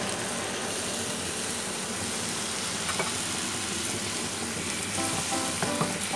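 Steady sizzling of grated carrots frying in ghee in a pan as milk is poured in and stirred through with a wooden spatula, with a single knock about halfway through. Background music with short notes comes in about five seconds in.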